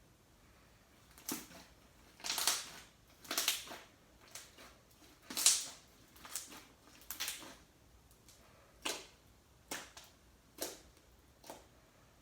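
Hands squeezing and stretching slime, giving about a dozen irregular crackling pops and squelches over some ten seconds, the loudest about halfway through.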